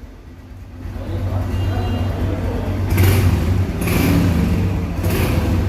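Honda CG 150 motorcycle's single-cylinder four-stroke engine running, getting louder about a second in, with short surges of revving near three, four and five seconds in.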